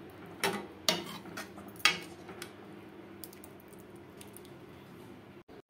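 Metal ladle stirring thick dal in a metal pan, knocking and scraping against the pan: four sharp clinks in the first two and a half seconds, then lighter taps.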